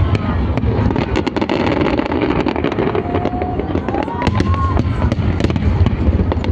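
Fireworks and firecrackers going off all around: a continuous, rapid crackle of many overlapping bangs over a low rumble.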